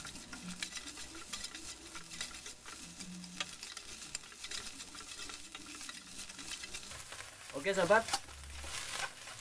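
Rice sizzling as it stir-fries in a stainless-steel wok, while a metal spatula stirs and scrapes against the pan with frequent short clicks and scrapes.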